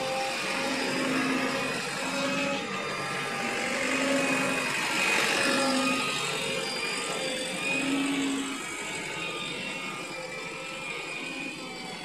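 Diesel engine of a JCB 3DX backhoe loader running steadily while it works, with short steady tones coming and going over it.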